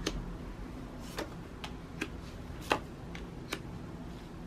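About seven short, sharp clicks at irregular intervals over quiet room tone, the loudest a little under three seconds in.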